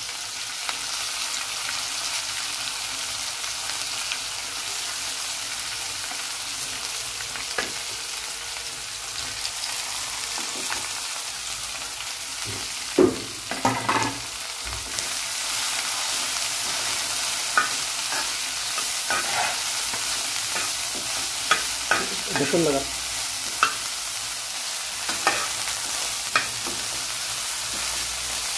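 Cut wild okra frying in a little oil in a frying pan, with a steady sizzle. From about halfway on, a steel spoon stirs the pieces, clicking and scraping against the pan now and then.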